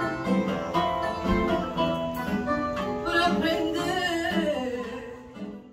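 Fado sung by a woman, with plucked guitar accompaniment; the voice wavers and slides down on a held note, and the music fades out near the end.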